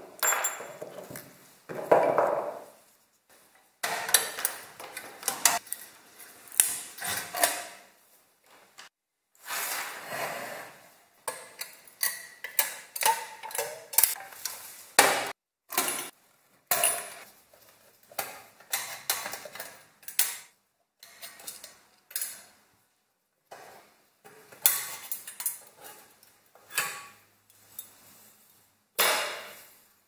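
Metal parts of an old fan heater being taken apart and handled on a wooden workbench: a string of short clinks, knocks and scrapes, with brief pauses between them.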